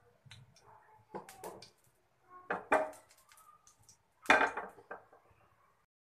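Kitchenware being handled: a few separate knocks and clinks of pots, dishes or utensils, the loudest about four seconds in.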